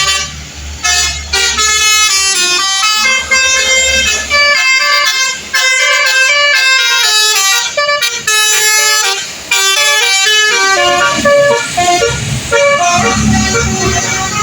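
Basuri telolet horn, a multi-trumpet musical vehicle horn, playing a fast tune of stepped notes in short phrases with brief breaks between them. A low rumble sits underneath in the first few seconds and again near the end.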